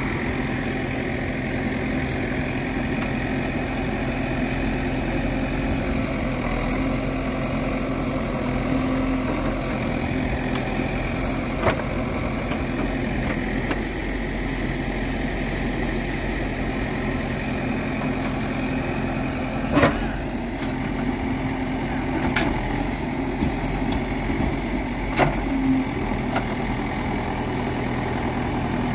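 Manitou TLB 740S backhoe loader's diesel engine running steadily as the backhoe arm digs and lifts sand. Several sharp metallic knocks from the bucket and boom linkage stand out, most of them in the second half.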